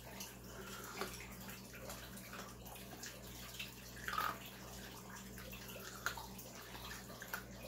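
Faint steady trickle of water from an aquarium filter over a low steady hum, with a few small clicks and a short sip of tea about four seconds in.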